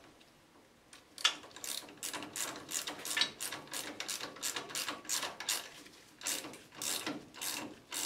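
Hand ratchet wrench clicking in steady strokes, about three clicks a second, as it tightens the nut on the lower mount of a new front shock absorber. The clicking starts about a second in and pauses briefly a little after six seconds.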